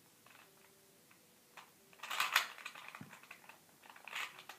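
Plastic 2x2 Rubik's cube turned quickly by hand, its layers clicking and rattling in short bursts that begin about halfway in.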